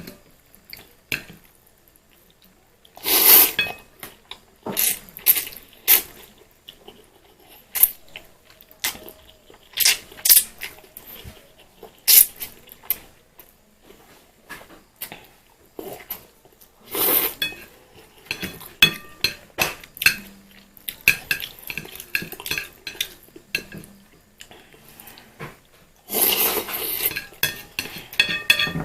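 Eating utensils clinking and scraping against a dish of fried instant noodles: many sharp separate clinks, with a few longer scraping rushes about three seconds in, past the middle and near the end.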